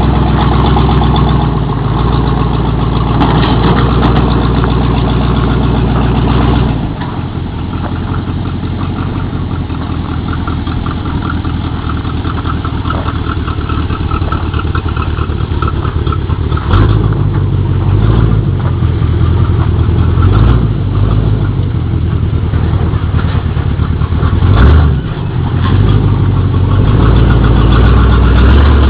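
1978 Chevy Camaro race car's V8 engine running after a hard start, loud for the first several seconds, then settling to a lower idle. In the second half the throttle is blipped several times, each rev rising and falling back.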